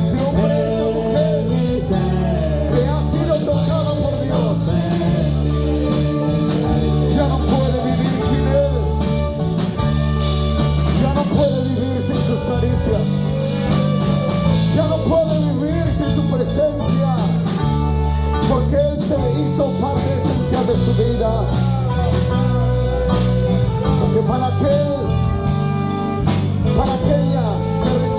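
Live worship band music: sustained bass notes, guitar and a steady drum beat, with singing over it.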